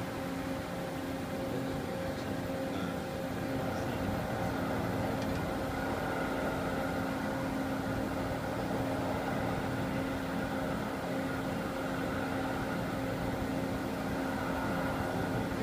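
Milling machine running steadily while a cutter with coated carbide inserts mills Inconel under coolant spray: an even hum carrying a few steady tones.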